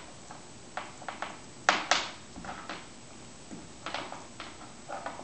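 Shih Tzu puppy gnawing a chew bone on a hardwood floor: irregular clicks and knocks of teeth and bone, the loudest pair about two seconds in.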